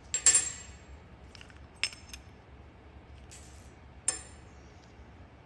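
Metal power steering pump parts clinking against each other as they are handled: a loud ringing clink just after the start, two lighter clicks near two seconds in, and another ringing clink about four seconds in.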